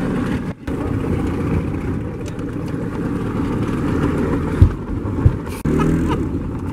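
Small motorboat's engine running at low speed, with two sharp thumps about four and a half and five seconds in, and a man laughing near the end.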